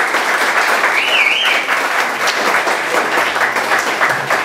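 A roomful of people clapping steadily, with a brief wavering high tone about a second in.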